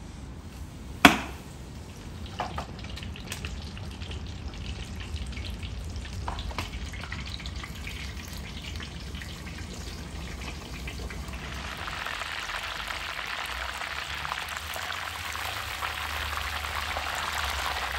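Battered chicken deep-frying in hot oil in a pot: a steady crackling sizzle that grows denser and louder about two-thirds of the way through. A single sharp knock about a second in is the loudest sound.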